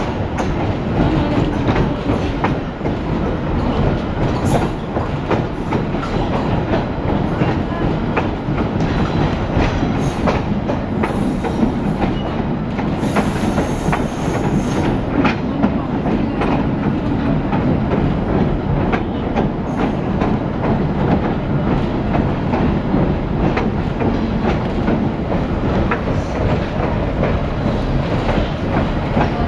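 Passenger train running steadily along the track, heard from aboard: a continuous rumble with the wheels clicking over the rail joints.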